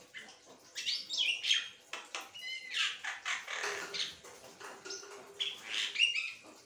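Caged Javan myna (jalak kebo) singing without pause: a run of harsh, chattering calls mixed with short whistled glides.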